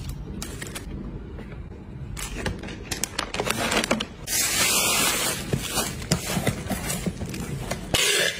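Packing a cardboard box: knocks and rustles as items are set in, a plastic snack bag crinkling for about a second as hands press it down, then packing tape tearing loudly off a handheld tape dispenser near the end.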